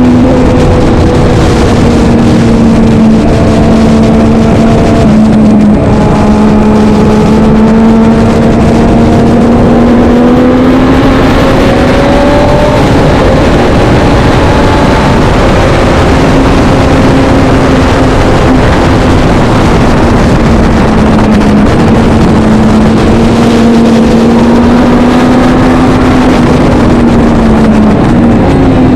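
Vintage racing motorcycle engine running hard throughout, its note holding high and rising and falling a little with throttle, with a few brief dips, over a constant loud rushing noise.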